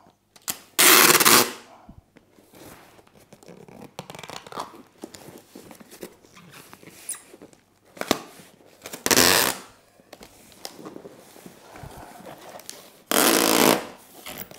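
Packing tape pulled off the roll in three long rasps, about a second in, about nine seconds in and near the end, with fainter rustling and knocks of parcel handling between.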